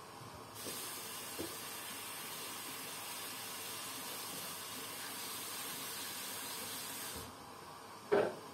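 A steady hiss of air or vapour from the facial treatment equipment switches on about half a second in and cuts off abruptly about seven seconds in. A single short knock follows near the end.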